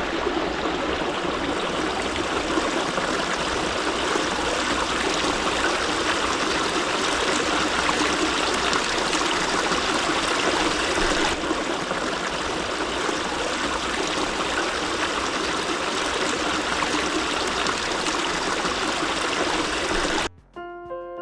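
A stream running steadily, an even rush of water. Near the end it cuts off and quieter piano music begins.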